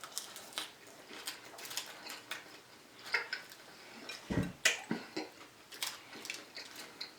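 Close-up eating sounds: irregular small clicks and smacks of chewing and handling food, with one louder, deeper smack about four seconds in.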